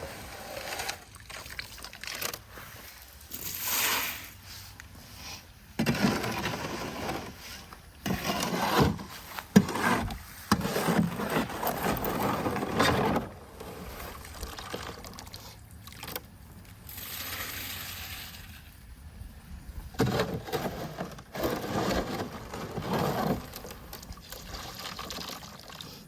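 Irregular scraping and sloshing of wet concrete being worked with a shovel, in uneven strokes.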